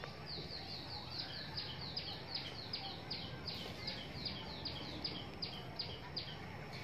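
A bird calling in a long run of short, high descending chirps, about three a second, that stop near the end, over a thin steady high tone.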